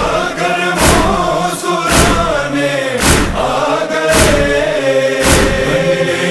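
Unaccompanied noha vocals: a male chorus chanting a held, wordless refrain between verses. A deep thud about once a second keeps time under the voices.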